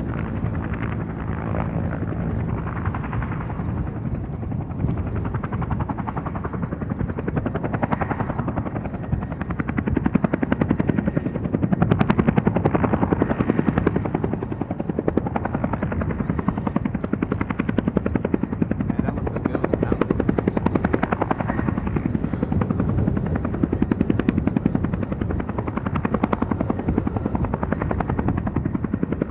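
Four-engine turboprops of C-130J Super Hercules transports running at taxi power: a steady drone of fast propeller beats, swelling a little about ten seconds in.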